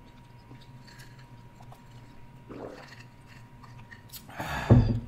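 Close-miked mouth sounds of sipping an iced drink through a straw and swallowing. About four and a half seconds in comes a short, louder rustling noise that ends in a low thump.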